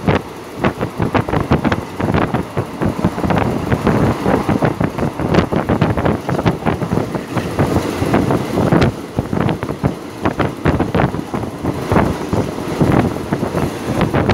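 Passenger train running at speed, heard at an open carriage window: a steady rumble with a rapid, irregular clatter of knocks from the running gear, and wind buffeting the microphone.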